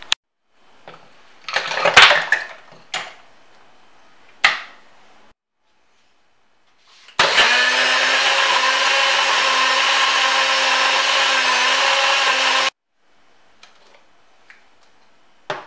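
Ice cubes clattering and knocking into a blender cup, then a NutriBullet blender motor running steadily for about five seconds as it blends ice, milk and pumpkin into a frappe, cutting off suddenly.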